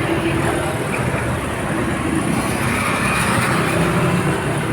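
Steady vehicle noise: engines running with tyre and road hiss, continuous and without sudden events.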